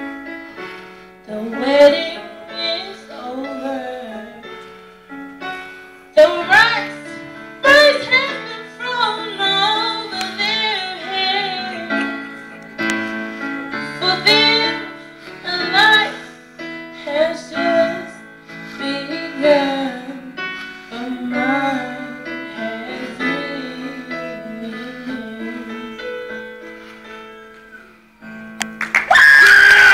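A teenage girl singing solo with piano accompaniment, her voice sliding through long held notes. About a second before the end, loud audience cheering and applause break out.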